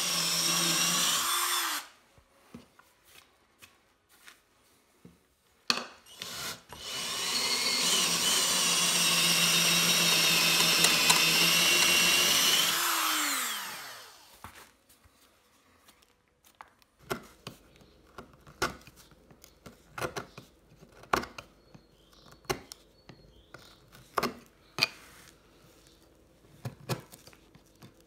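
Cordless drill boring into an old wooden floorboard: a short run of about two seconds, then a longer run of about six seconds, each ending with the motor winding down. Afterwards, scattered short scrapes and clicks as a chisel picks at the wood around the drilled hole.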